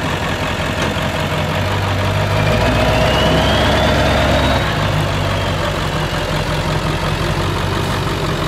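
Ford F-350 Super Duty's 7.3 L Power Stroke V8 turbodiesel running at low speed as the truck creeps along. About two and a half seconds in it swells under a little throttle, with a rising whistle over it, and then settles back to a steady low run.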